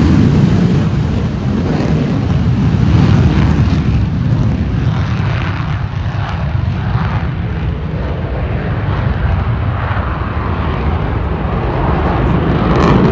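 Loud jet noise from an F-35 fighter flying a display pass overhead, a steady deep rushing sound from its turbofan engine. It eases a little midway and swells again near the end.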